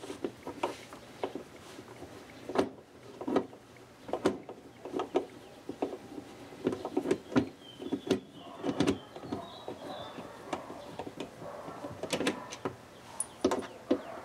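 Hand screwdriver backing screws out of a boat console's glove box panel: irregular clicks, scrapes and small knocks of the tool, screws and panel, with a brief high squeak about eight seconds in.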